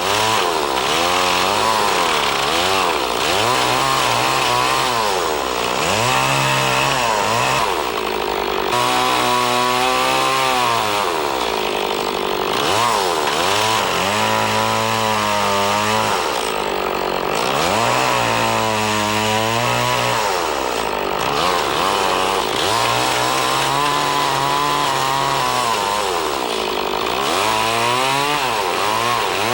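Chainsaw revving up and down over and over, its pitch rising and falling every few seconds, as it makes sweeping cuts to clean out and shape a round saddle notch in a log.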